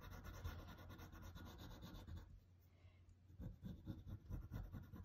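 Colored pencil scratching faintly on paper in quick back-and-forth shading strokes, stopping for about a second midway and then starting again.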